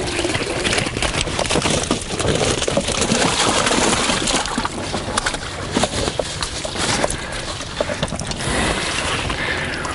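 Water splashing and pouring as a dripping keepnet full of bream is emptied into a plastic bucket, with many wet slaps of fish against each other, the net and the bucket.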